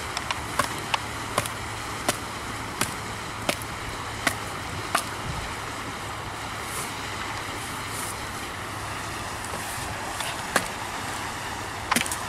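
Camillus Carnivore Inject machete blade chopping into a stick of hard wood: a run of sharp, evenly spaced chops about one every 0.7 seconds, then a few scattered strikes near the end.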